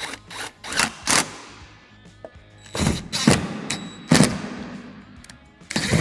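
Cordless impact tool driving belly-pan bolts into the underside of the car in several short bursts, the first few in quick succession.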